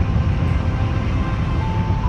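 Steady low rumble of a ferry's engine, with a soft melody of single held notes stepping down and then back up in pitch over it.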